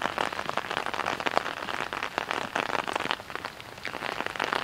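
Rain falling hard, many drops striking surfaces close by as a dense, irregular run of small ticks over a steady wash of noise.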